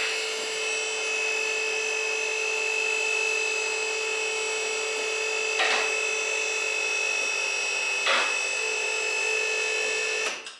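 Powered car lift's electric motor running with a steady whine as it raises the car, stopping abruptly near the end. Two brief clacks sound along the way, the first about halfway through and the second a couple of seconds later.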